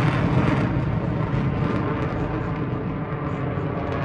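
Jet engine noise from Blue Angels F/A-18 Super Hornets moving away after a pass: the hissing high end dies away within the first second, leaving a steady low rumble.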